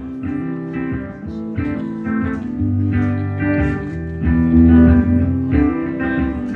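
A single guitar playing chords live, strummed and picked in a slow, changing pattern, with no singing.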